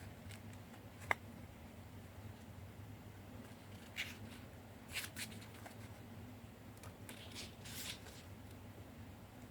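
Soft paper rustles and handling noises from a tarot deck and its guidebook, with a sharp click about a second in and a few brief rustles later on, over a faint steady low hum.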